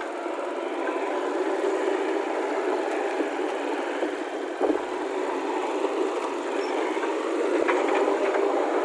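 Heavy diesel vehicle engine running steadily, with a sharp knock about halfway through.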